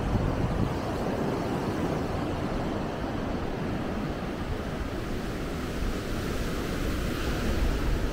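Ocean surf breaking and washing up a sandy beach in a steady wash, with wind rumbling on the microphone.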